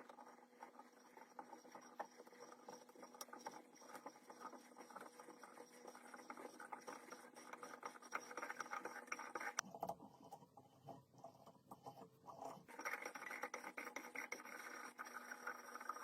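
Faint, irregular scratching and scraping made of many small clicks, over a steady faint hum. About ten seconds in it gives way for some three seconds to a sparser, different texture, then resumes.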